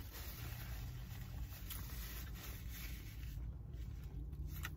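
A paper napkin rustling and crinkling as it is rubbed over hands and mouth, dying down after about three seconds.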